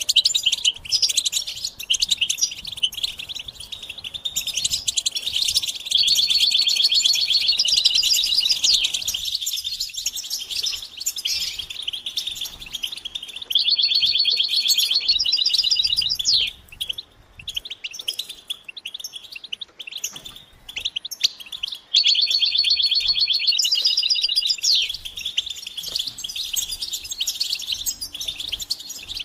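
European goldfinches chattering and twittering in fast, high trills, the group calling used to spur males to sing. The calling comes in three loud bursts of rapid trills, with a broken, quieter stretch between the second and third.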